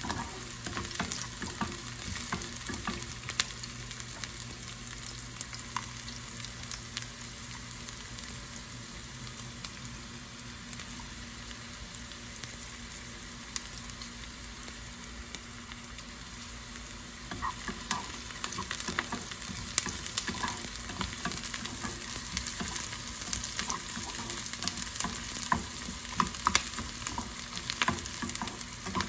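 Chopped onions sizzling in oil in a small nonstick frying pan while they are browned, with a spatula scraping and stirring them. The stirring clicks get busier a little past halfway.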